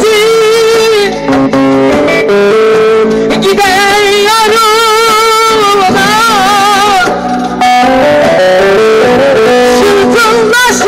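Loud amplified live music: an electronic keyboard playing a wavering, ornamented melody with plucked-string sounds, and a young woman singing into a microphone.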